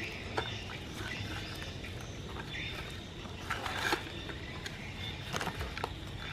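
Steady outdoor background noise with a few light clicks and a brief rustle about three and a half seconds in, as a baby monkey handles food pieces on a plate.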